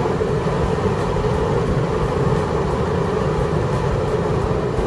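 Steady low road and engine noise of a car driving at speed, heard from inside the cabin.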